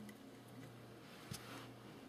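Quiet room with a faint steady hum. A single light tap comes a little past halfway, followed by a brief soft rustle.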